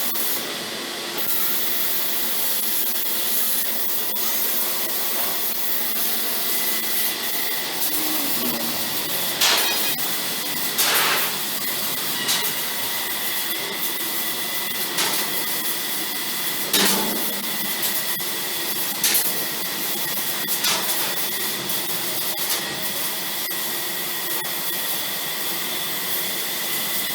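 CNC laser cutting machine running: a steady hiss like a fan or blower, with a faint steady whine and short louder bursts every second or two from about nine seconds in.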